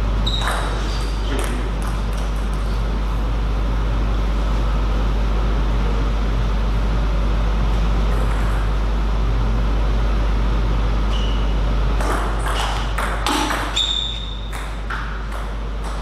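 Table tennis ball clicking off bats and the table in quick rallies, a cluster near the start and another from about three-quarters of the way through, with a few short high squeaks among them. A steady low hum runs underneath.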